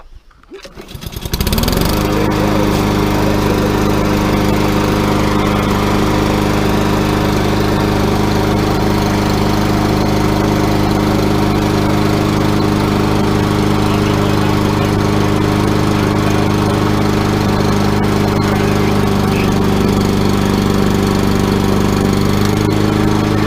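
Lawn mower engine starting about a second in, then running steadily at one constant speed.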